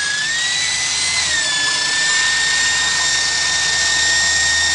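Handheld electric drill running steadily with a high motor whine, its pitch dipping slightly about a second in.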